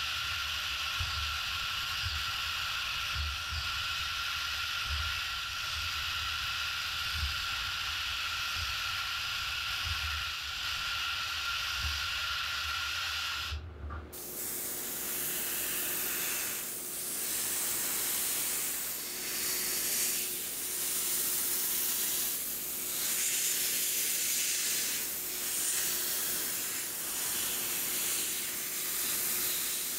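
A steady spraying hiss with a thin whistle-like tone in it. About fourteen seconds in it breaks off, and a second spraying hiss follows that swells and fades every second or two.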